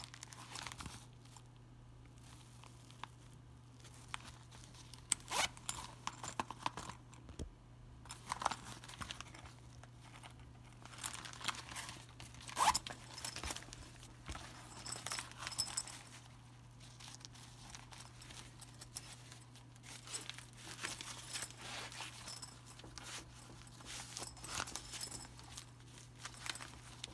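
A Cordura nylon map pouch being handled: a zipper pulled, the fabric and its clear waterproof map sleeve rustling and crinkling, with scattered sharp clicks and taps. A faint steady low hum lies underneath.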